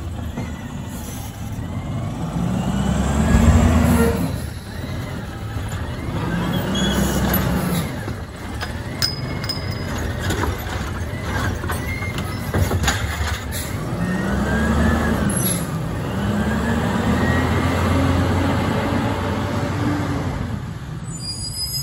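Front-loader garbage truck's diesel engine revving up and down in repeated surges as the hydraulic arm lifts a trash cart over the cab and dumps it, with a run of metal clanks and bangs about halfway through as the cart is emptied. The engine surges again near the end as the cart is lowered and the truck pulls away.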